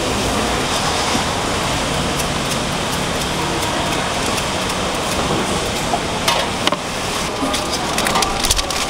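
Steady hum of a busy street market with a low drone, and in the last few seconds a run of sharp clicks and knocks as a metal tray and a knife touch a plastic cutting board during papaya cutting.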